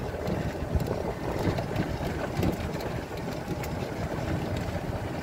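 Golf cart driving along a paved road: a steady low rumble from the cart and its tyres, with light rattles and wind buffeting the microphone.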